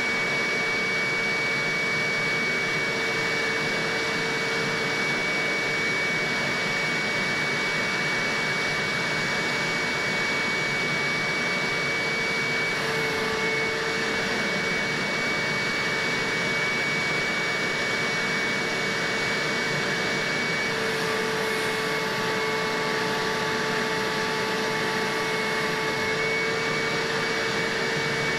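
Hoover upholstery shampooer running steadily, its motor drawing suction through the hand tool as the tool is worked across a fabric couch cushion. The motor gives a steady whine with a high tone, and the pitch shifts slightly a little before halfway and again about three quarters through.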